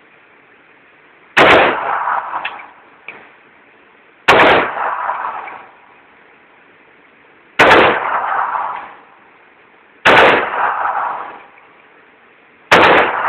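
AK-47 rifle (7.62×39 mm) firing five short bursts about three seconds apart. Each burst starts sharply and trails off over about a second.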